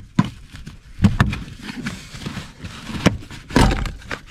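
Plastic kick-panel trim being pulled and popped off its clips: a series of snaps and knocks with handling rustle, the loudest a thump about three and a half seconds in.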